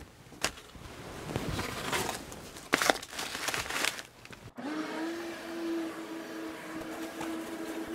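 Irregular rustling and scraping as mouse-nest litter and debris are pulled out by hand. Then, about halfway through, it switches abruptly to a vacuum running with a steady high hum as it sucks debris from a truck's floor carpet.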